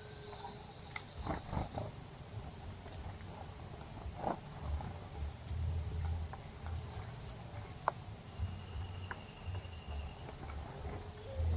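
Faint, high, short bird chirps and a thin held whistled note near the middle, over an uneven low rumble, with a few soft knocks early on.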